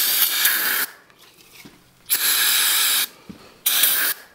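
Aerosol can of brake cleaner sprayed in short bursts into a wheel cylinder bore to flush out honing residue. There are three hissing sprays: the first stops about a second in, the second lasts about a second, and a short one comes near the end.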